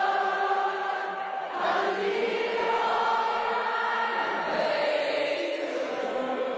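A large crowd singing together in unison, holding long drawn-out notes that move to new pitches every second or two.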